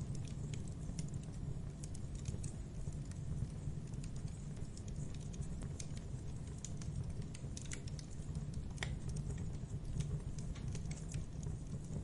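Wood campfire burning: irregular sharp crackles and pops of the burning logs, many a second, over a steady low rumble.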